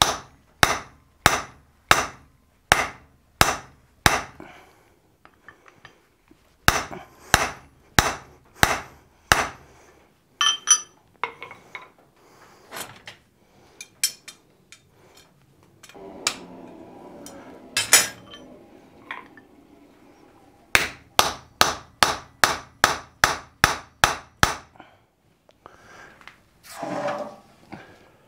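Hand hammer striking a slot punch driven into a hot wrought-iron hammer blank on the anvil, punching the eye: three runs of sharp, steady blows, the last run faster, with lighter metallic clinks and ringing between them.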